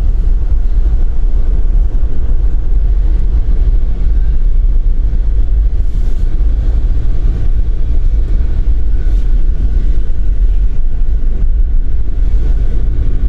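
Steady low road and engine rumble inside the cabin of a moving truck.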